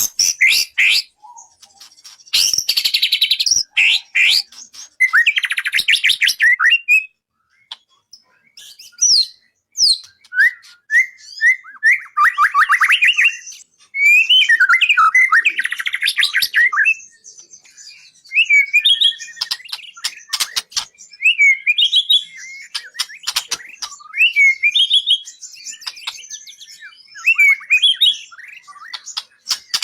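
Songbird singing in varied phrases of rapid chirps, trills and whistled sweeps, with short gaps between phrases. It is a 'masteran' birdsong recording, played to tutor a white-rumped shama (murai batu) in song.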